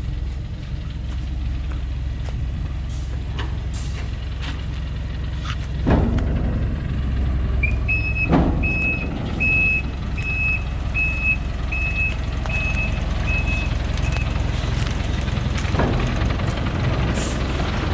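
Thaco Forland FC950 4WD truck's diesel engine running steadily under load on a rocky slope, with a few sharp knocks as its chained tyres strike rock. In the middle a reversing alarm sounds about ten evenly spaced beeps, the truck backing up.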